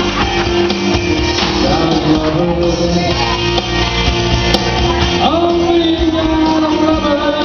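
Karaoke performance of a country-rock song: a band backing track with guitar plays while a man sings along into a microphone.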